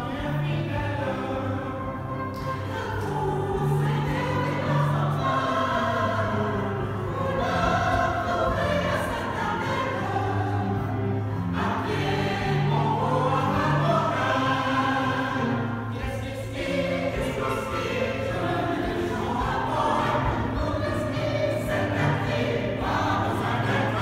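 Mixed choir of men's and women's voices singing together, continuously and at a steady level.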